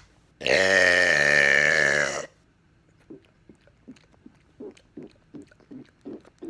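One long, loud human burp lasting nearly two seconds, starting about half a second in, its pitch wavering slightly. It is followed by faint short sounds, two or three a second.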